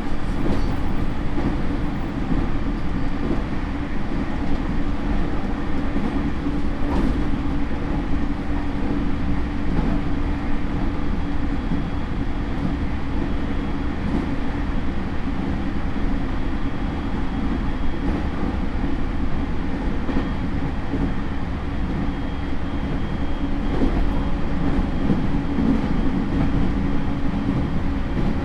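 Running noise heard inside a JR E231 series suburban motor car with Hitachi IGBT traction equipment: a steady rumble of wheels on rail and traction motor, with a faint high tone through the middle.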